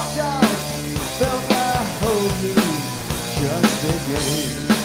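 Two-piece rock band playing live: electric bass and drum kit with a sung vocal line over a steady beat of about two drum hits a second.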